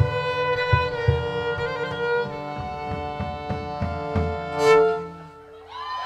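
Fiddle-led folk band playing the closing bars of a tune, swelling to a loud final accented chord a little under five seconds in and then stopping. Applause starts just before the end.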